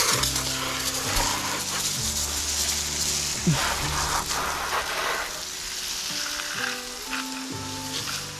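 Water running and splashing as a plastic chicken waterer is rinsed and washed, a dense fluctuating hiss. Background music with a stepping bass line plays underneath.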